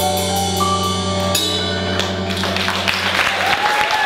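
A live band of saxophones, electric guitar, bass, drum kit and keyboard holding its final chord, with drum-kit strikes about one and a half and two seconds in. The chord dies away near the end as clapping comes in.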